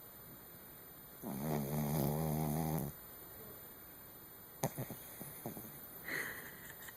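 Chihuahua–Pomeranian mix dog snoring in its sleep: one long, wavering snore lasting almost two seconds, then a click and a run of short snuffles, and a breathy puff near the end.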